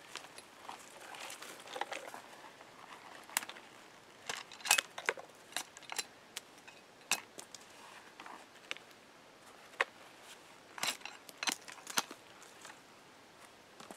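Condor Bush Knife's stainless billhook blade chopping thin branches against a stump: about a dozen sharp chops and twig snaps at irregular intervals, some in quick pairs.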